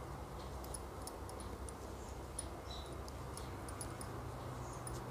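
Faint, irregular small clicks and rustles of a crochet hook working wool yarn into double crochet stitches, over a low steady hum.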